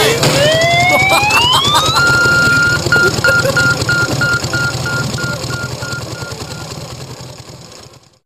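Closing of an electronic pop song: a synth tone sweeps up in pitch over about two seconds, then repeats as echoes about three times a second over a low drone. The whole sound fades out to silence near the end.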